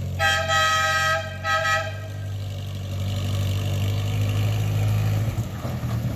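Dual-tone electric-compressor air horn on a 1956 Willys Jeep CJ5 sounding twice: a blast of about a second, then a shorter one. The Jeep's four-cylinder engine idles steadily underneath.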